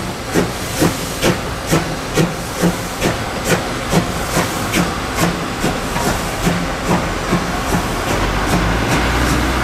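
CK124 steam locomotive working hard as it moves off, its exhaust chuffing in a steady beat about twice a second over a constant hiss of steam. The chuffs grow fainter over the last few seconds as a steady low rumble rises.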